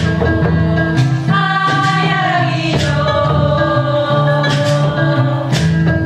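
West African music: several voices singing together in chorus over a kora's plucked notes, with a few sharp percussive strikes.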